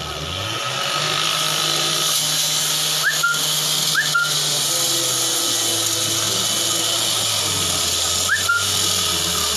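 A motor runs steadily with a low hum and a steady hiss, its pitch stepping down about halfway through. Three short rising whistle chirps sound over it, two close together in the middle and one near the end.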